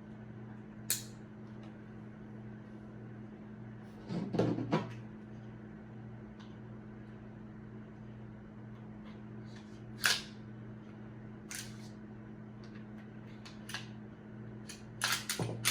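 Scattered clicks and clacks of a 9mm pistol's parts being handled during reassembly: a single click about a second in, a short cluster of knocks about four seconds in, a few single clicks, and another cluster near the end. A faint steady hum runs underneath.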